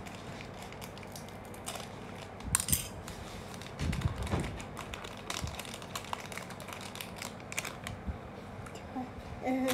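A plastic snack wrapper being snipped with scissors and crinkled as it is worked open by hand, with scattered crackles, a sharp crinkle about two and a half seconds in and handling bumps a little later.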